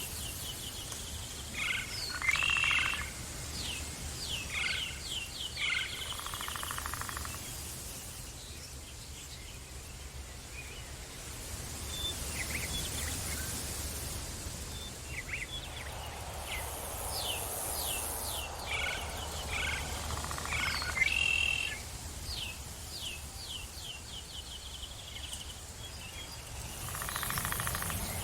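Forest ambience with birds calling: runs of short, quick falling chirps come in two spells several seconds long, over a steady low rumble.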